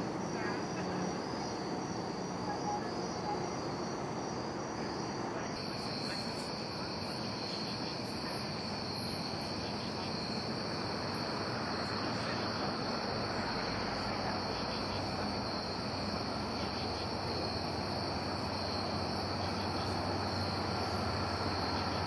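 Steady high trilling of an insect chorus; about five and a half seconds in it changes abruptly to a different, smoother chorus. Toward the end a low rumble of an approaching train grows faintly beneath it.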